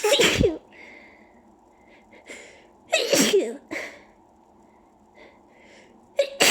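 A person sneezing three times, about three seconds apart: at the start, about three seconds in, and again near the end. Each sneeze is a sharp blast that ends in a short falling voiced sound, with faint breaths between them. The sneezes are set off by dust, to which the person is allergic.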